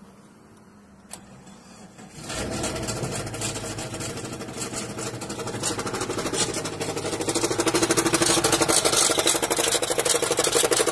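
Car engine starting about two seconds in, then running with a fast, even clattering knock that grows louder toward the end; the engine has a hole in it.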